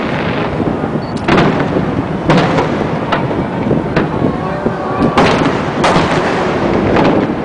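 Aerial fireworks shells bursting one after another, about six heavy booms each followed by a ringing tail, over a continuous rumble and crackle of the display.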